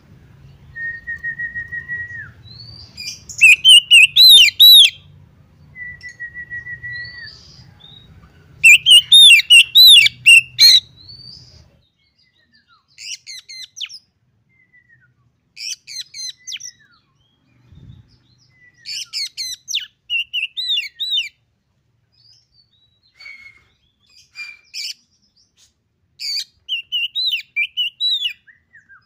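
Oriental magpie-robin singing. Long flat whistles alternate with loud bursts of rapid, varied notes, and after about 12 seconds come shorter varied phrases with pauses between them.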